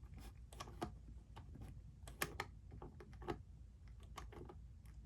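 Irregular small clicks and taps as the keys of a McFarlane Riddler puzzle box prop are worked into their slot, with a few sharper clicks about two and three seconds in; the key mechanism is sticking, as it is known to jam.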